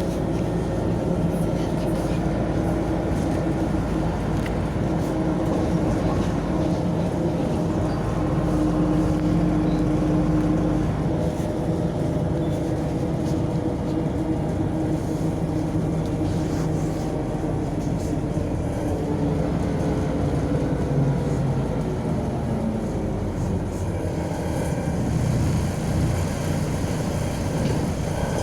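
MAZ 105 articulated city bus driving, heard from inside the passenger cabin: a steady engine drone over road noise, its pitch slowly rising and falling as the bus speeds up and slows down.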